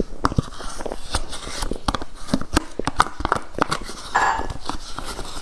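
Close-miked eating of soft cream cake: a steady run of wet mouth clicks and chewing, with a plastic spoon scraping the inside of a plastic dessert cup.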